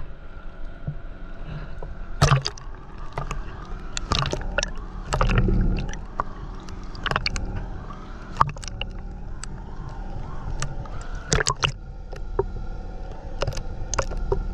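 Water gurgling and sloshing around a camera held underwater, heard as a steady low rumble broken by sharp, irregular clicks and knocks, loudest a couple of seconds in, around the middle and about eleven seconds in.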